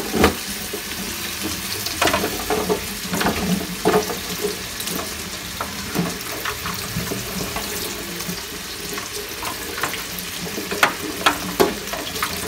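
Kitchen tap running in a spray into a stainless steel sink while a bunch of long beans is rubbed and rinsed by hand, with scattered splashes and knocks of the beans against the sink.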